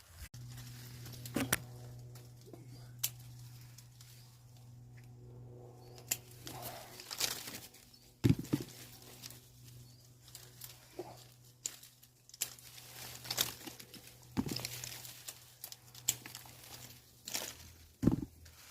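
Citrus leaves and branches rustling, with irregular sharp snaps and clicks as grapefruit and tangerines are picked by hand. A steady low hum runs underneath.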